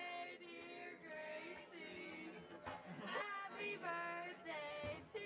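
Singing voices with music, held on long notes that slide from one pitch to the next.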